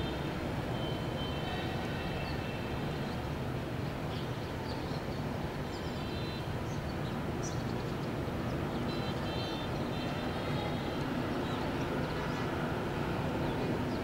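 Brown shrike giving short, high, twittering song phrases several times, faint against a steady low rumble that is the loudest sound throughout.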